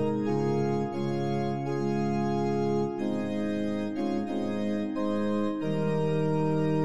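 Slow organ music: sustained chords held for a second or two each before moving to the next.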